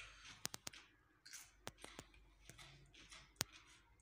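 Near silence in a small room, broken by a few faint, sharp clicks: a quick cluster about half a second in, two more in the middle and one louder click near the end.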